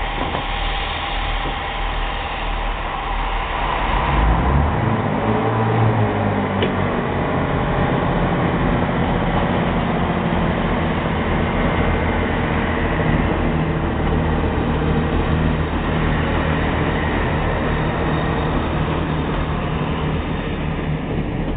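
Peppercorn A1 Pacific steam locomotive 60163 Tornado, a three-cylinder engine, working its train: continuous exhaust and train running noise heard from a carriage window, growing louder about four seconds in.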